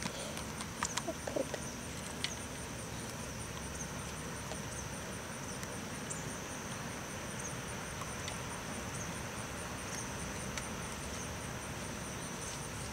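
Insects calling steadily: a constant high buzz with a rapid pulsing trill above it, over a low outdoor background hum. A few light clicks come in the first second or so.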